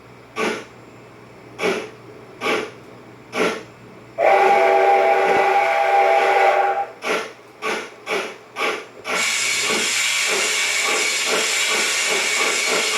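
Steam locomotive sounds played by a KATO 22-101 model-railway sound box: four slow exhaust chuffs, a steam whistle held for about two and a half seconds, then chuffs coming quicker. About nine seconds in they give way to a steady loud hiss of steam.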